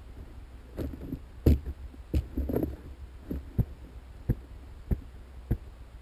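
A series of dull thumps, about one every half second to second and the loudest about a second and a half in, over a low steady hum.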